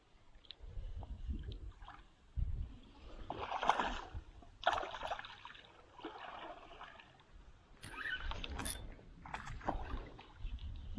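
Water splashing and sloshing around a kayak in several short bursts, over a low rumble.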